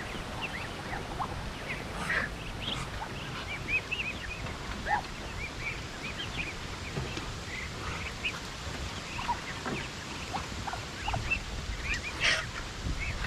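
A flock of poultry peeping and calling, with many short, overlapping high chirps. One louder, harsher call comes near the end.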